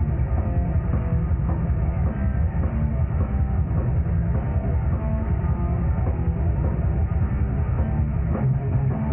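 Thrash metal band playing live: distorted electric guitars, bass and drum kit, loud and unbroken, heard from right beside the stage.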